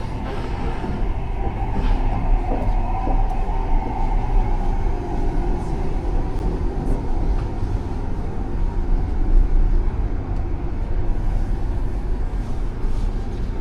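Passenger train running, a steady low rumble of wheels on rails heard from inside a carriage, with a few faint clicks.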